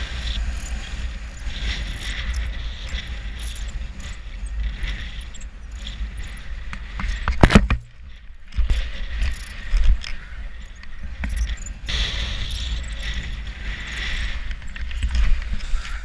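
Strong wind buffeting the microphone: a steady low rumble with gusting hiss. A single sharp knock about seven and a half seconds in.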